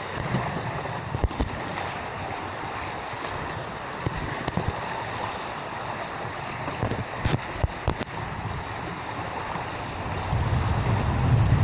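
Wind rushing across the microphone, a steady noise broken by a few small knocks, with stronger low buffeting near the end.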